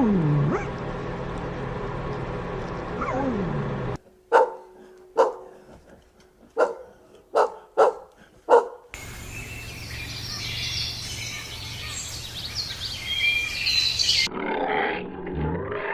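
A run of different animal calls, one clip after another: two long calls falling in pitch, then about six short sharp calls a little under a second apart, then a stretch of busy high-pitched calling, then another call near the end.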